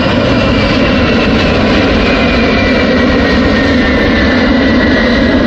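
Jet engines of a large four-engine tanker aircraft and two fighter jets flying past overhead: a loud, steady engine noise with a high whine slowly falling in pitch.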